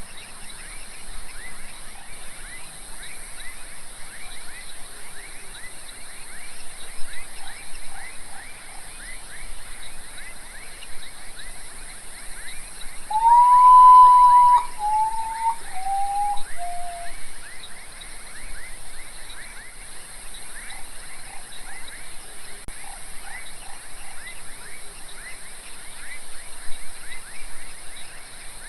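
Common potoo singing once, about halfway through: a long whistle followed by three shorter notes, each lower than the last. Beneath it runs a steady chorus of rapid short chirps and a high hiss.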